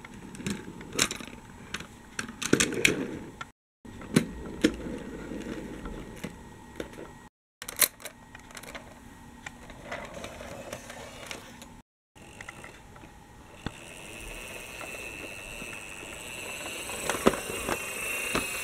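Plastic toy vehicles rattling and clicking as they roll over plastic track pieces, in several short bursts. In the last part a steady whirring with a high whine grows louder.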